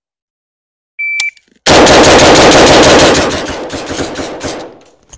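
A shot timer's electronic start beep about a second in, then a Yugo M70 AK-pattern rifle firing a very fast string of semi-automatic shots for about three seconds (a bill drill).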